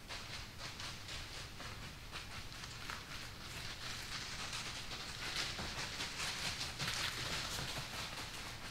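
Dry fall leaves rustling and crackling in quick, irregular little clicks, growing louder about halfway through.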